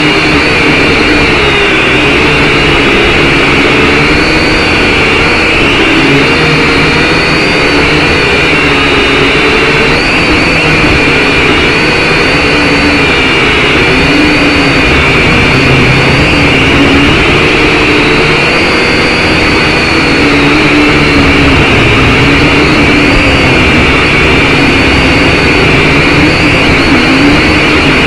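RC quadcopter's electric motors and propellers whirring close to the microphone, their pitch wavering up and down as the throttle keeps correcting in flight, with wind noise underneath.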